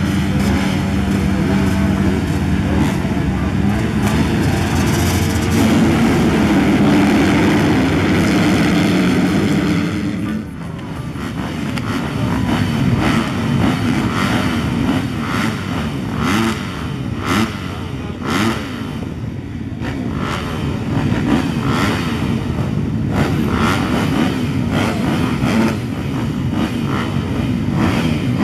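A pack of motocross bikes running together, a dense, steady engine drone for about the first ten seconds. The sound then drops suddenly and gives way to individual dirt bikes revving up and down, with repeated sharp cracks as the throttle is opened and shut.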